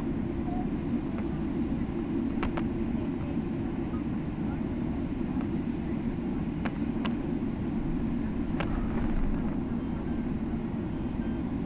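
Steady low rumble inside a jet airliner's cabin as it taxis after landing, with a few short clicks.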